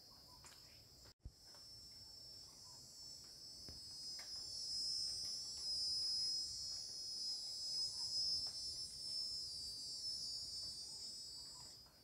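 Insect chorus: a high, steady buzz that swells louder from about four seconds in and fades near the end, broken by a brief gap in the sound about a second in.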